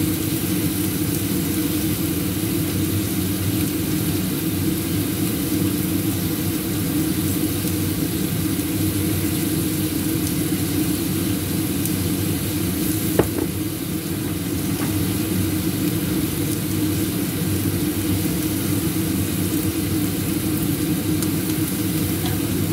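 Crab pieces sizzling steadily in a stainless steel wok over a gas stove, with a constant low rumble beneath. One sharp click a little past halfway.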